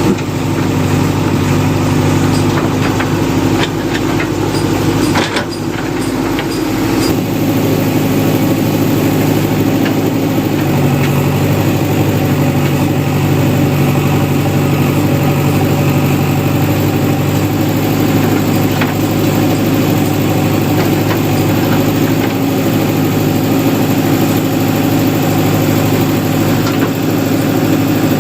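JCB 3DX backhoe loader's diesel engine running steadily while it works. A few sharp knocks come about four to five seconds in, and the engine note dips and shifts briefly soon after.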